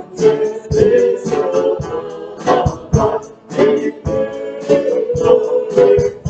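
A mixed vocal group of women and men singing together into handheld microphones, held sung notes broken by syllables throughout.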